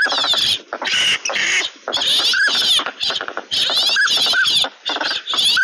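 A flock of ducks calling: short, arched whistles of northern pintail drakes, several of them in pairs, over a dense chorus of harsh, rasping duck calls.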